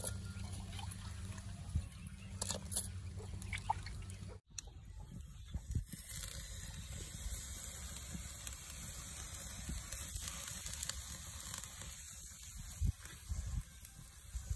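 Milk and rice simmering and bubbling in a clay pot over a wood fire, a steady hiss with a few faint crackles. The sound drops out for a moment about four and a half seconds in.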